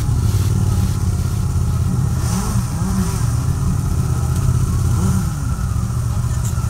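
Many motorcycle engines running together in a steady low rumble, with single bikes revving up and down now and then.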